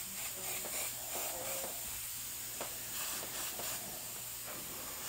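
Airbrush hissing as compressed air and paint spray from it, over a steady low hum.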